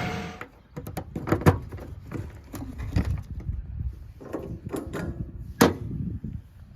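Irregular knocks and clunks, with three louder sharp knocks among lighter clicks.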